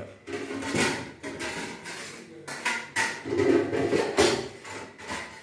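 Knocks and clatter of cookware being moved about inside a kitchen base cabinet as someone rummages for something, with the cabinet door opening.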